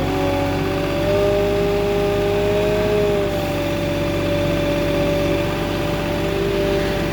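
Moffett truck-mounted forklift running with its engine working, a steady hum overlaid with a whine that steps up in pitch about a second in and eases back down a couple of seconds later.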